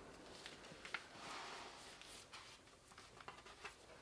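Near silence with faint handling sounds of a hardcover book: a few soft taps and a brief rustle about a second in.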